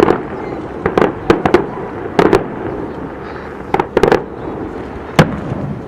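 Aerial fireworks shells bursting in quick succession: sharp bangs in clusters of two or three, about a dozen in all, over a continuous low rumble.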